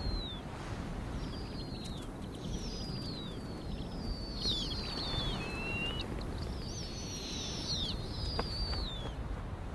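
High, thin bird calls, each sliding down in pitch, about eight of them with some overlapping, over a steady low rumble.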